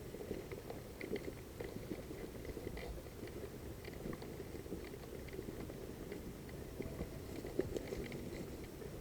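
Soft rustling with scattered light crackles and ticks: close-up movement through dry brush, with clothing and gear brushing.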